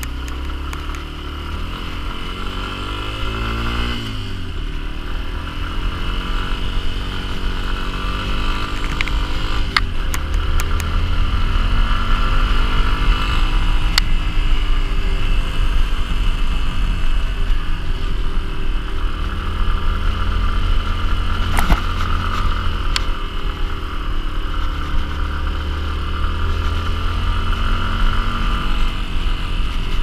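Dual-sport motorcycle engine running under way, its pitch rising and falling several times as the rider works the throttle and gears. A few sharp ticks cut through the engine.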